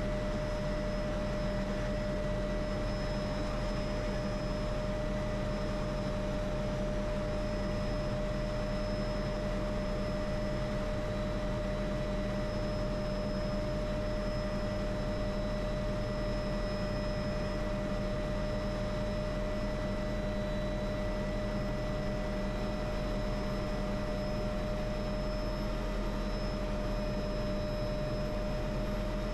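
MD500E helicopter's turbine engine and rotor running steadily after landing, heard from inside the cabin: an even rush with a constant high whine over it.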